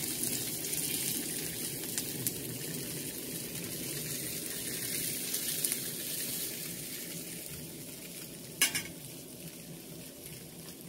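Tofu pancakes sizzling in oil in a frying pan, a steady hiss that fades gradually toward the end, with a few faint clicks and one sharp click a little before the end.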